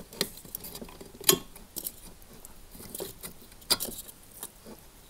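Small clicks and rattles of plastic electrical connectors being worked off the terminals of a dishwasher heating element, with two sharper clicks as the plugs come loose.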